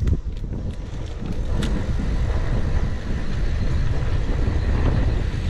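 Steady low rumble of riding a fixed-gear bicycle along a concrete sidewalk: wind buffeting the camera microphone and tyres rolling, with a few faint ticks.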